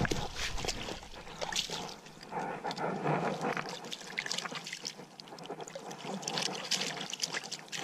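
Water splashing and trickling as a freshly caught bass is rinsed off in pond water, in small irregular splashes.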